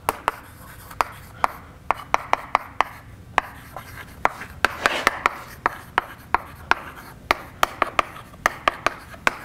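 Chalk writing on a blackboard: irregular sharp taps as the chalk strikes the slate, with short scratchy strokes between them.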